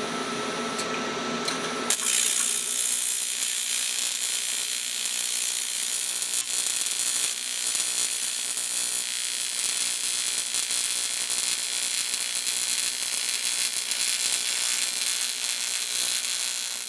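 AC TIG welding arc on aluminium: an AHP Alphatig 200x at 92 amps with argon shielding, giving a harsh, steady buzzing hiss. It starts about two seconds in and cuts off suddenly as the arc is broken. The welder reckons this bead was run probably way too hot.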